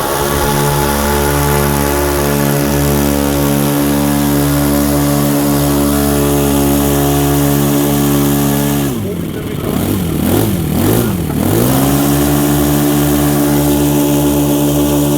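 Two four-stroke model aircraft glow engines, an O.S. FS-62V and a Saito FA-62 turning 13x6 propellers, running together at high speed. About nine seconds in the throttle is pulled back: the pitch falls, rises and falls again, then climbs back to a steady high speed.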